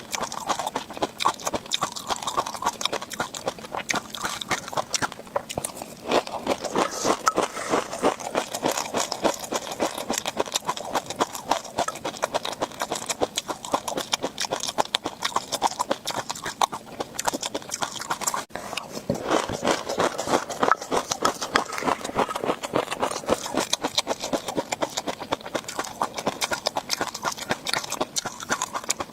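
Close-miked chewing of tobiko (flying-fish roe), a dense, continuous crackle of tiny eggs popping and crunching between the teeth.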